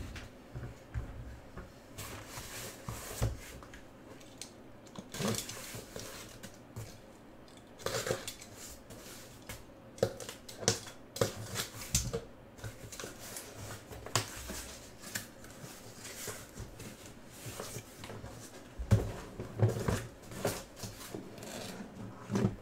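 Sealed cardboard case being opened by hand: packing tape slit and the flaps pulled back, with irregular scraping, rustling and knocks of cardboard, and the boxes inside bumping.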